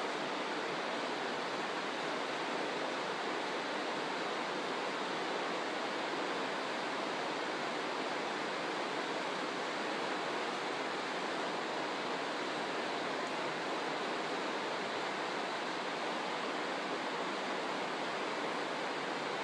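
A steady, even hiss that does not change, with no other sounds.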